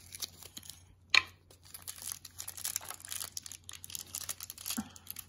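Thin plastic blind bag crinkling and rustling as a small toy is worked out of it by hand, with one sharp click about a second in.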